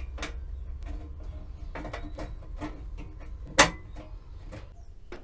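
Wire pan supports of a two-burner gas stove being set back onto the metal stove top by hand, a series of light knocks and clinks with one sharper knock about three and a half seconds in.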